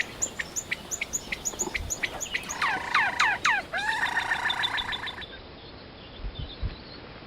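Songbirds calling: a string of sharp, high chip notes about three a second, a few downward-sliding whistles, then a buzzy trill. About five seconds in the calls stop, leaving a faint background with a couple of soft thumps.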